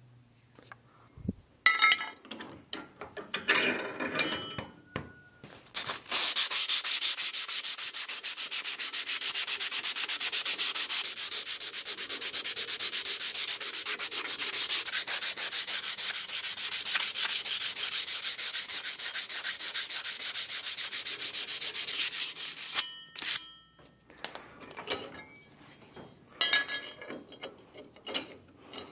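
Hand-sanding the flat of a steel cleaver blade, cut from a lawnmower blade and clamped in a bench vise, with sandpaper in rapid back-and-forth strokes: a steady rasping hiss that starts about six seconds in and runs for about seventeen seconds. Scattered scrapes and knocks of handling come before it, and a couple of short metallic clinks after it stops.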